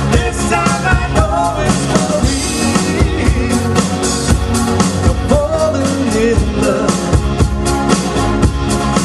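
A band playing live: singing over a drum kit beat, with a steady rhythm throughout.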